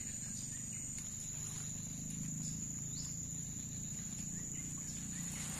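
Steady, high-pitched insect trill, a cricket-like drone holding one pitch throughout, over a steady low rumble.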